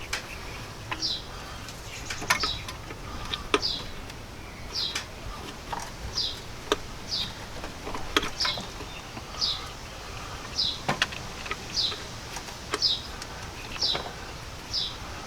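A bird chirping over and over, short falling notes about once a second, with scattered sharp clicks and light knocks between them.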